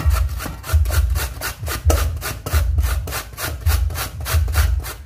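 A carrot being grated on a stainless steel box grater standing in a steel bowl. The rasping comes in quick, even strokes, with a dull low knock every second or so.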